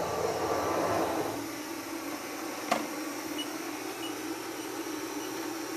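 CNC sheet router's gantry motors whining as the machine is jogged, stopping about a second in. A steady machine hum goes on after it, broken by one sharp click near the middle.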